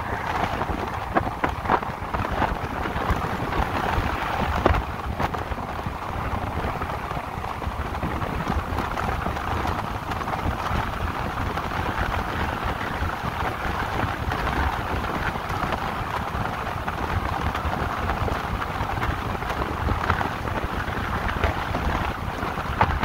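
Steady rush of wind and tyre noise from riding an electric motorcycle at speed, with no engine note. A few light knocks come in the first five seconds.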